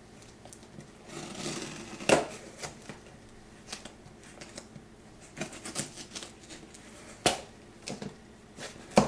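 Packing tape on a cardboard shipping box being slit along the seam with a small pointed tool: scratching and crackling of tape and cardboard, with scattered sharp clicks and taps. The loudest come about two seconds in, about seven seconds in and near the end.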